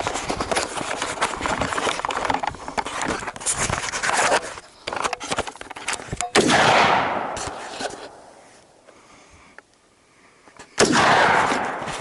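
AR-15 rifle fired twice, about four and a half seconds apart, each shot followed by a long echo that dies away. A loud, rough noise fills the first half before the first shot.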